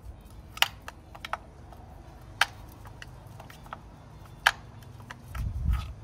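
Scattered sharp metal clicks and taps from a small ratchet and bolts as the ignition coil pack is unbolted, about seven in all at uneven gaps. A short low rumble comes shortly before the end.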